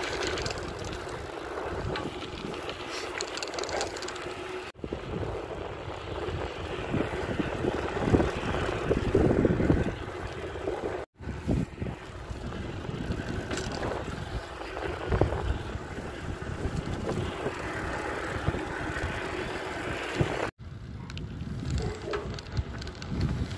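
Wind buffeting a phone's microphone while riding a bicycle on a road, with rumbling and rattling from the bike on the asphalt. The sound cuts out briefly three times.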